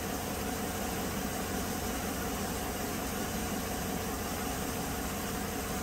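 2014 Chevrolet Silverado's 5.3-litre direct-injection V8 idling steadily at about 660 rpm, heard as an even hum under a steady hiss.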